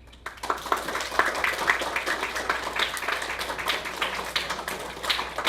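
Small audience applauding at the end of a song: many hands clapping unevenly, starting about a quarter second in.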